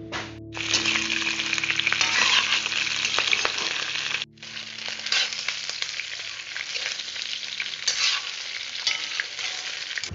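Pieces of pork sizzling in hot oil in a wok, stirred with a metal spatula that clicks against the pan. The sizzle starts suddenly about half a second in and stays loud, with a brief cut-out a little before halfway.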